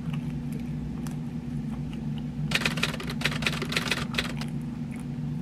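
A steady low hum with a quick burst of clicking and rustling about two and a half seconds in, lasting about a second.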